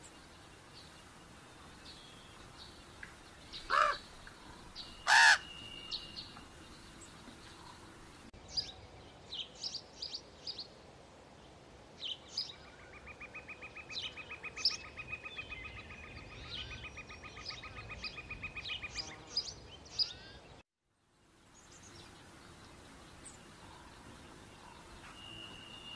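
Woodland birdsong: two loud, harsh calls a few seconds in, then many short chirps and a long, rapid, evenly pulsed trill. All sound cuts out briefly late on.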